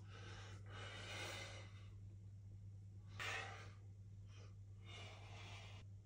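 A man breathing hard through poses, a series of forceful breaths, the strongest about three seconds in, over a faint steady low hum.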